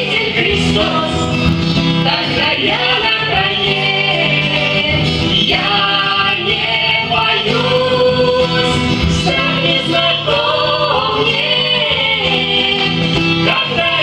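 Voices singing a Christian children's song to acoustic guitar accompaniment, with both women's and men's voices.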